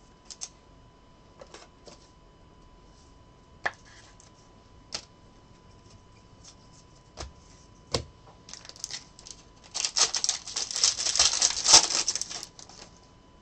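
Trading cards being handled, with a few soft taps and clicks, then a foil card-pack wrapper crinkling and tearing open for about four seconds near the end, the loudest sound.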